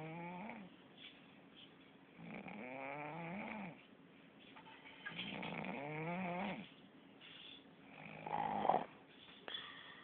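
Snoring: three long breaths a couple of seconds apart, each carrying a tone that rises and falls, then a shorter, louder breath about eight seconds in.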